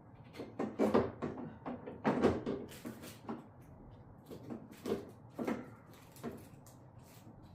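Irregular plastic knocks and clunks of a tail light housing being pushed and pressed against the car body to seat it, the hardest knocks about one and two seconds in.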